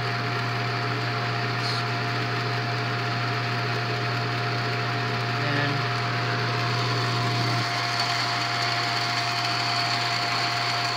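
Bell & Howell 644B 8mm film projector running steadily: motor, fan and mechanism make an even mechanical hum with a constant tone. The owner says it needs a new belt before it is in working condition.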